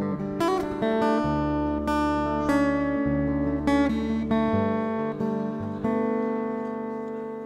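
Acoustic guitar playing a song's instrumental intro: chords plucked and left to ring, a new chord about every second.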